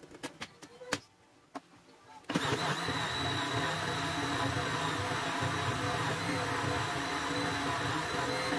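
Philips countertop blender starting suddenly about two seconds in and then running steadily with a high whine, blending chopped ginger with water. Before it starts, a few clicks and knocks as the plastic jar is seated on the base.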